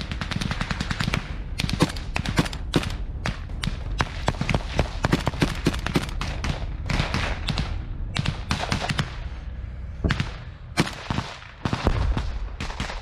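Heavy small-arms fire at close range: many rapid, overlapping gunshots, thinning out after about nine seconds into scattered single shots.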